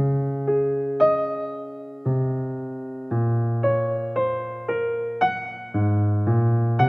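Background music: a slow, gentle piano melody over held chords, a new note struck about every half second and fading away.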